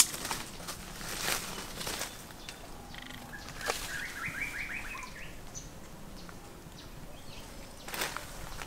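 Footsteps and rustling through dry leaf litter and undergrowth, in scattered sharp crackles. A short, rapid trill of about eight repeated bird notes sounds about four seconds in.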